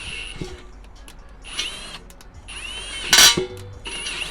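Power drill run in short bursts, its motor speeding up and slowing down each time, with one loud sharp metallic clank about three seconds in.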